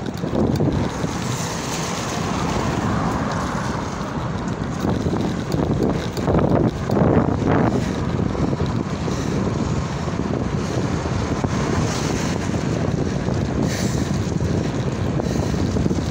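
Wind rushing over the microphone of a camera mounted on a moving BMX, mixed with the hiss of its tyres rolling on wet tarmac, louder for a couple of seconds midway.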